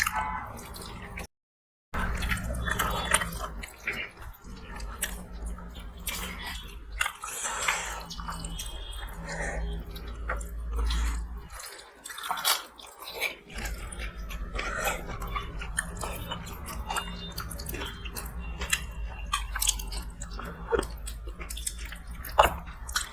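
People chewing and eating close to the microphone: frequent irregular smacks, crunches and small clicks over a steady low hum, with a brief cut-out of all sound just after the start.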